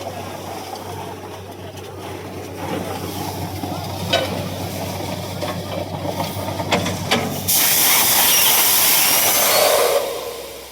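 Borewell drilling rig running with a steady hum and a few sharp knocks. About seven and a half seconds in, a loud rushing hiss of compressed air and water blowing out of the bore takes over, then dies away near the end.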